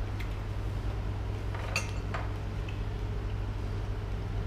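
Spoons and plates clinking a few times during a meal, with one sharper, ringing clink a little under two seconds in, over a steady low hum.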